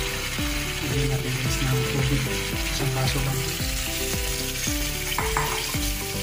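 Chicken, potatoes and carrots sizzling in a steel frying pan, with water poured in from a bowl partway through. Background music with a steady beat plays over it.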